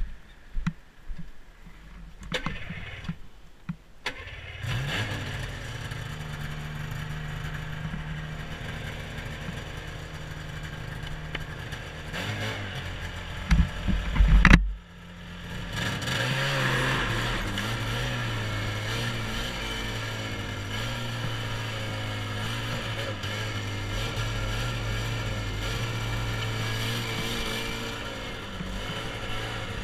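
1996 Yamaha Phazer snowmobile's two-stroke twin: a few clicks, then the engine catches about four seconds in and idles steadily. Past the middle come a few loud thumps, and the engine then runs at a steady speed under way on snow.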